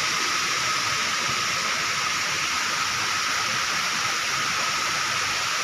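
Steady, unbroken outdoor hiss, mostly high-pitched with little low rumble, with a faint steady tone running through it.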